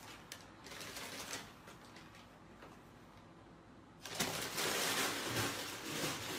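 Paper bag crinkling as a cat with its head stuck inside shuffles across a wooden floor, with faint scattered clicks. About four seconds in, a sudden louder burst of rustling and scrabbling as the cat dashes off with the bag.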